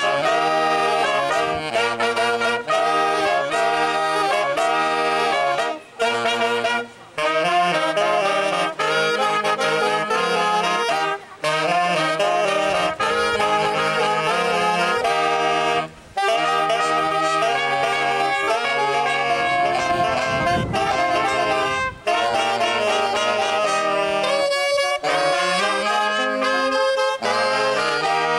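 Saxophone playing a melody in phrases separated by brief pauses, backed by a band with a bass line.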